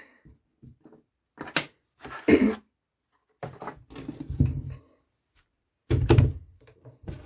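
Knocks and clunks of a Ruger 10/22 rifle and its receiver being handled on a work surface, several separate thuds with pauses between, the loudest about six seconds in.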